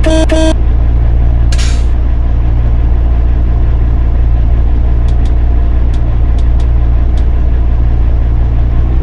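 Ford F-600 truck engine rumbling steadily as the truck pulls away. A horn toot ends about half a second in, and there is a short hiss about a second and a half in.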